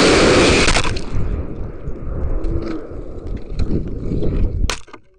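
A rocket motor strapped to a 1:10 RC desert truck firing with a loud, rushing roar that cuts off about a second in. After it come rumbling wind noise and scraping on the onboard microphone as the car tumbles, and a sharp knock near the end.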